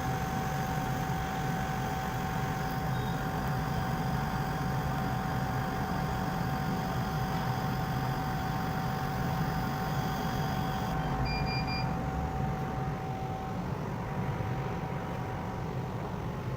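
Laser cutting machine running while cutting acrylic: a steady mechanical hum with a steady whine over it. The whine stops about thirteen seconds in.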